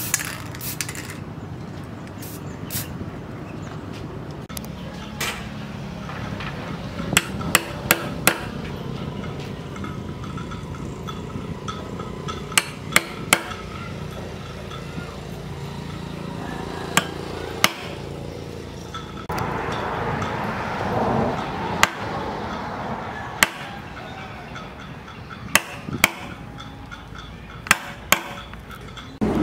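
Restored wood chisel struck on its handle and driven into a wooden board: sharp single knocks, often in quick groups of two to four, with pauses between them as wood chips are cut out. A short hiss of spray paint at the very start.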